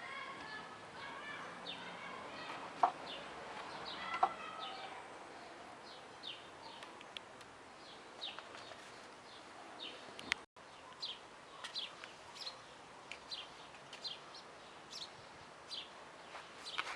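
Birds calling: a dense run of short chirps in the first few seconds, then short downward-sliding calls about one or two a second. A brief dropout comes about ten seconds in.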